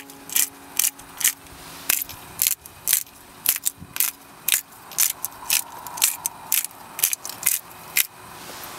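Pepper mill grinding black pepper: a quick run of dry, crunchy rasps, two or three a second, that stops shortly before the end.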